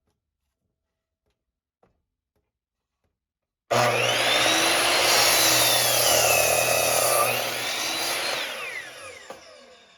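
Electric power saw cutting through a wooden board: it starts suddenly a few seconds in, runs with a whine that shifts in pitch under load, then winds down with falling pitch near the end.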